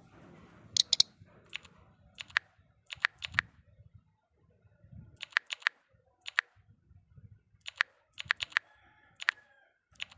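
Sharp, irregular clicks, some single and some in quick pairs or triples, with short quiet gaps between them.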